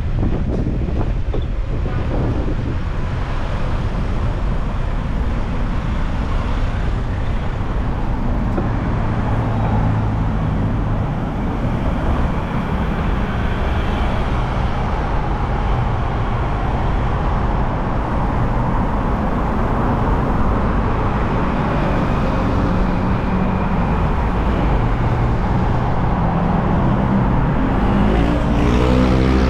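City street traffic heard from a moving bicycle: motor vehicles running by with a steady rumble of engines and tyres. Near the end, an engine close by grows louder.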